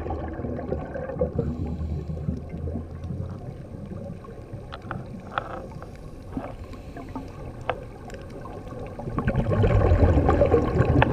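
Underwater sound picked up through a camera's housing: a muffled low rumble of water with scattered sharp clicks, then a louder stretch of bubbling and gurgling near the end, like a diver's exhaled bubbles.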